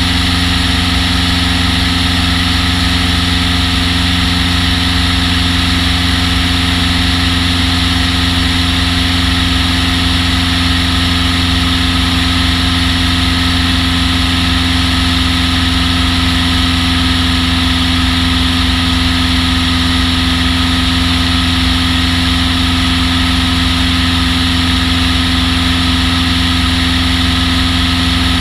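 Rutan Long-EZ's piston engine and pusher propeller running at a steady, unchanging speed: a constant drone with a strong fixed hum over a steady hiss.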